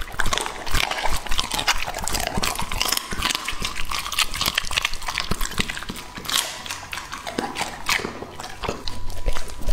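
Labrador retriever chewing with its mouth open: a dense, irregular run of quick wet crunches and smacks.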